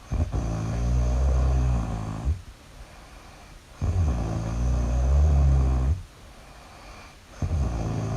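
Loud, deep snoring: long snores of about two seconds each with a quieter breath between them, three in all, the third starting near the end.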